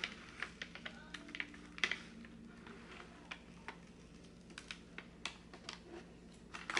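Scattered light clicks and crackles of paper and plastic film being handled as the cover sheet is peeled back from a sticky diamond-painting canvas.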